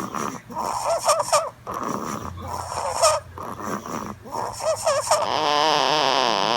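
A baby snoring: short, high, wavering squeaks on the breaths about every two seconds, then a longer, louder, steady snore for the last second or so.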